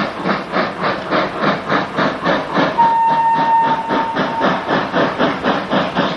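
FS class 625 steam locomotive working under steam, its exhaust beating in a quick, even rhythm of about four to five chuffs a second. About three seconds in, a single steady whistle note sounds for about a second and a half.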